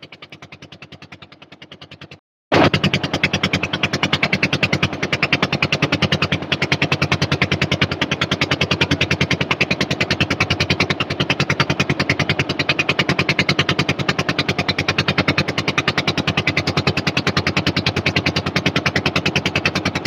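Motor boat's engine chugging in a fast, steady rhythm. It is fainter for about two seconds, breaks off briefly, then comes back much louder and even.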